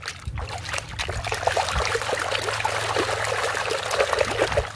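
A hand scrubbing a plastic toy mask in a basin of muddy, foamy water: steady wet sloshing and splashing that stops near the end.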